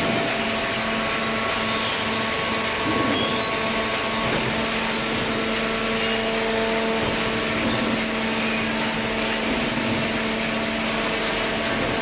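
Automatic horizontal hydraulic paper baler and its feed conveyor running: a steady machine hum with several constant tones over a broad hiss.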